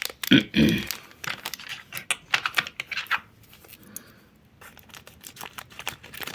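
Thin plastic toy packaging being crinkled and torn open by hand: a run of irregular sharp crackles.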